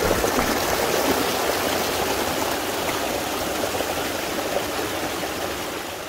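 A mountain stream rushing and splashing over rocks in a small cascade, a steady rush of water that fades toward the end.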